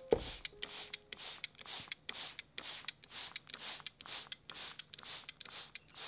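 Hand-pumped trigger spray bottle misting a tray of seedlings: short hissing sprays, about two a second. A sharp knock just at the start.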